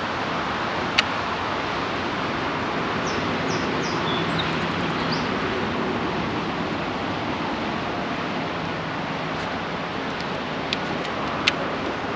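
Steady rushing noise of wind and choppy river water, with a few faint high chirps about three to five seconds in and a few sharp clicks near the end.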